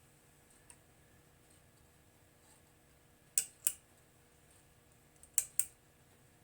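Small switch clicking: a faint single click, then two pairs of sharp clicks about two seconds apart.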